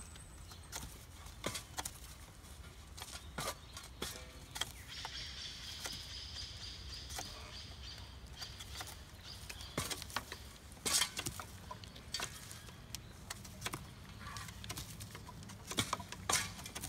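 Bamboo being split and flattened by hand, giving irregular sharp knocks at an uneven pace, with a few louder strikes about eleven seconds in and near the end. A high hiss runs for a few seconds about five seconds in.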